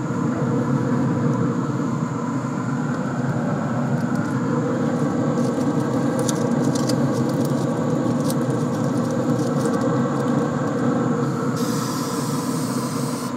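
Pit Boss pellet smoker running, a steady mechanical drone from its fan, with a few faint ticks about the middle.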